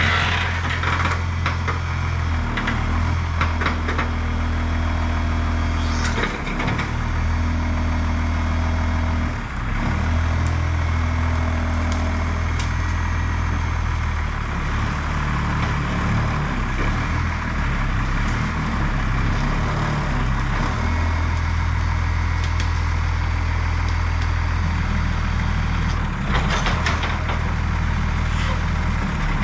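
The Cummins 6BT inline-six diesel of an old Oshkosh plow truck running, its note shifting every few seconds as the hydraulic plow is raised and angled. A few short sharp sounds come near the start, about six seconds in and near the end.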